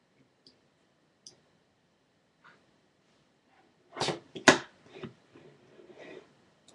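A few faint, short clicks, then two loud, sharp noises in quick succession about four seconds in, followed by faint low mumbling.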